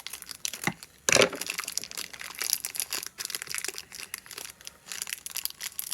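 Crinkly packaging wrapper being handled and torn open by hand to get at small toy figures: a busy run of crackles and crinkles, with a loud sharp crackle about a second in.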